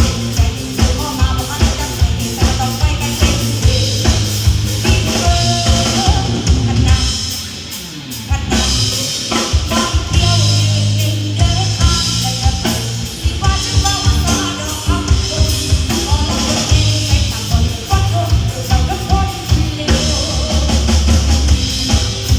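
Live band music with a drum kit keeping a steady beat of about two strokes a second. The beat drops out briefly around seven to eight seconds in, then comes back in full.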